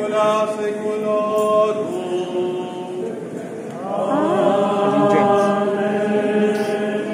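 Friars and clergy chanting a hymn, long held notes that step from pitch to pitch, the singing growing louder and fuller about four seconds in.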